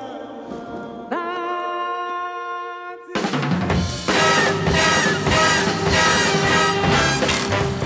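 A held chord for about three seconds, then loud drum-kit music starts suddenly, with snare hits and a steady beat.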